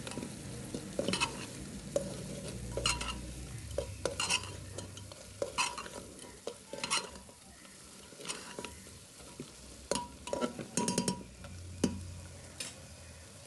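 Metal ladle scraping and clinking against the sides of an aluminium pressure cooker as mutton pieces are stirred in spices and ginger-garlic paste, in strokes about a second apart. The meat sizzles steadily as it fries underneath.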